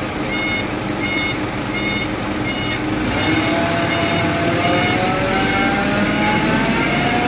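A truck's reversing alarm beeps about every 0.7 s over a running truck engine. The beeping stops a few seconds in, and the engine's pitch then rises slowly as it revs up.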